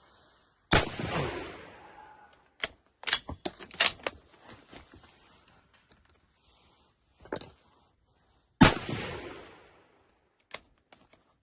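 Lee-Enfield No. 5 Mk I jungle carbine firing .303 British: two loud shots about eight seconds apart, each with a long fading tail. Between them come sharp metallic clacks, typical of the bolt being worked to chamber the next round.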